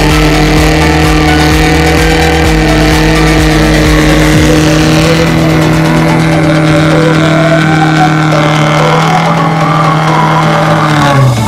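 Nissan 240SX's stock dual-cam four-cylinder engine held at steady high revs during a burnout, the rear tire spinning against the pavement, with a wavering squeal in the second half. The revs drop off just before the end.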